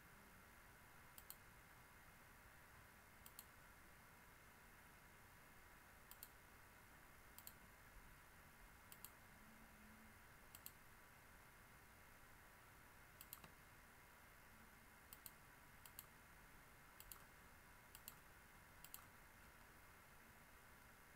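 Faint computer mouse clicks, about a dozen at irregular intervals, some in quick pairs, over near-silent room tone with a faint steady hiss.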